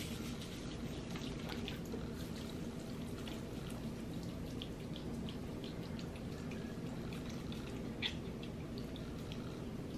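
Soft wet sounds of coconut-oiled hands rubbing together and patting over the face: scattered small ticks and smacks, one a little louder near the end, over a steady low room hum.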